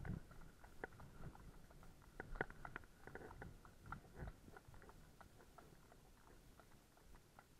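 Horses' hooves clip-clopping faintly on a tarmac road, an uneven run of sharp clicks that is loudest around two to four seconds in.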